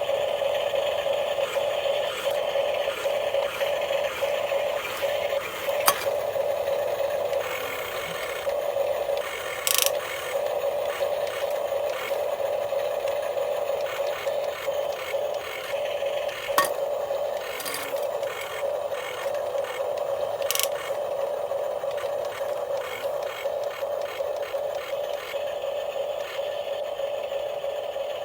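Small electric motor and plastic gearbox of a radio-controlled model truck whining steadily, with gear rattle and a few sharp clicks along the way.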